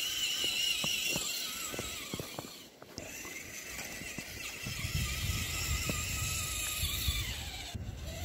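Electric motor and gearbox of a 4WD RC crawler whining, the pitch wavering as the throttle is blipped to push through sticky wet snow that gives the tyres little grip. A low rumble joins in about five seconds in.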